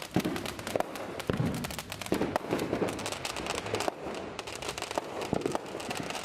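Consumer fireworks going off: a dense, irregular string of pops, cracks and duller booms, several a second without a break.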